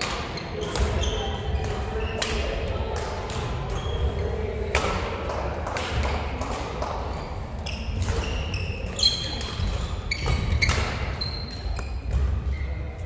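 Badminton rally: rackets repeatedly striking the shuttlecock, with sharp short squeaks of shoes on the wooden court floor between the hits.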